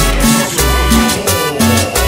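Latin dance music with a steady bass beat and percussion.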